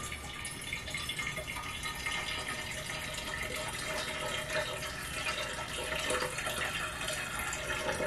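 Cold brew coffee poured in a steady stream from a pitcher into the narrow opening of a Royal Brew nitro cold brew mini keg, filling it.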